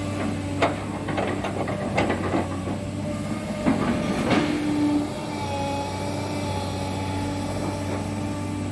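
Cat 320D excavator's diesel engine running steadily under work, with scattered knocks and clanks of metal, strongest about four seconds in, and a thin whine in the second half.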